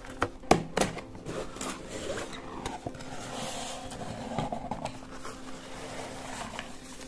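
Cardboard product box opened by hand: two sharp snaps as the lid flap comes free, about half a second in and again just after, then a stretch of cardboard scraping and rustling as the lid is lifted and the contents are handled.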